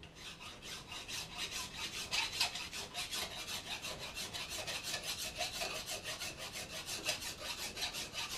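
Hand file rasping on the metal of an old pillar drill in quick, even back-and-forth strokes, filing off burrs.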